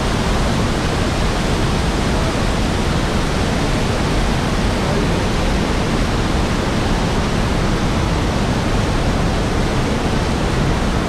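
Falling water of a Niagara waterfall, a loud, unbroken rush, heaviest in the low range.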